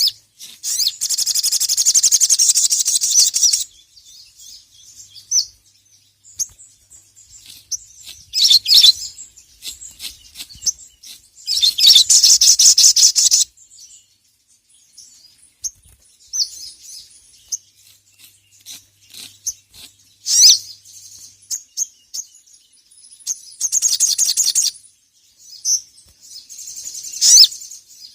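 Sogon (sogok ontong), a nectar-feeding bird, singing in repeated bursts of fast, high-pitched chattering trills, each one to three seconds long, with short chirps in between. This is the bird's full 'gacor' calling song, given as if to a rival.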